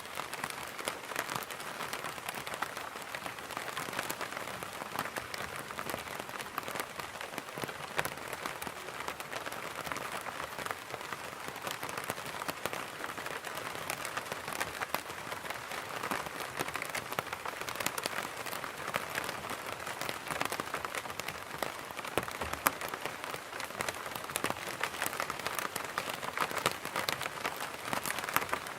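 Rain falling on an umbrella: a steady, dense patter of many small drop impacts on the fabric.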